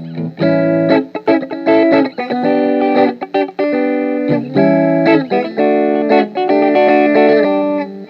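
Electric guitar played through a Zoom G7 multi-effects unit: a run of chords, each held about half a second to a second, with brief stops between them.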